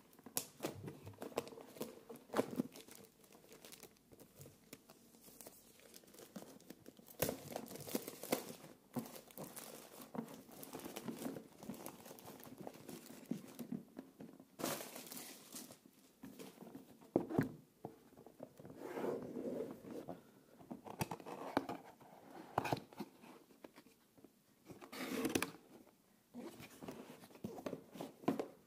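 Clear plastic shrink wrap being torn and crumpled off a retail cardboard box, in irregular bursts with a few sharp crackles, then the cardboard box being handled and opened.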